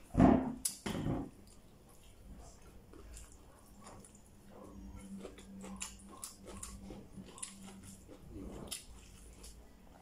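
Chewing and the soft squish of bare fingers mixing rice and vegetables on a plate, with many small wet clicks and smacks. Two loud short noises come in the first second.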